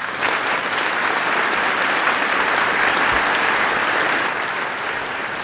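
Audience applauding, a steady dense clapping that eases off near the end.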